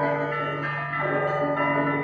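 Orthodox church bells being rung: several bells of different pitches sounding together, a deep bell's low hum held underneath while smaller bells ring over it, with fresh strikes about a second in.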